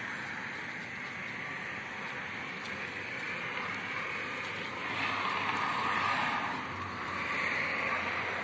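Steady toll-road traffic noise, the hiss of tyres and engines of passing vehicles, swelling as louder vehicles go by about five seconds in and again near the end.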